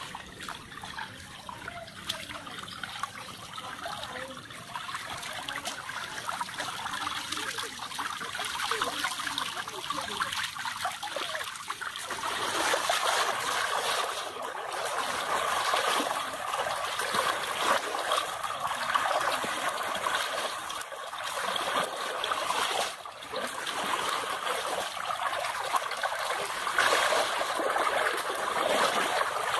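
Water running and trickling steadily in a shallow current, growing louder about twelve seconds in.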